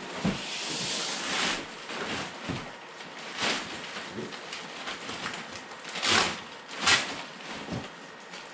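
Plastic packaging being rustled and torn off a new car bumper cover, in bursts, with two sharp, louder rips about six and seven seconds in.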